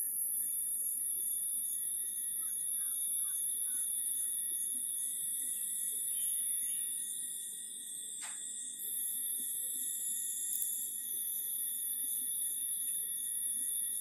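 Insects droning in a steady, very high-pitched whine, with a fainter constant tone lower down and a single short click about eight seconds in.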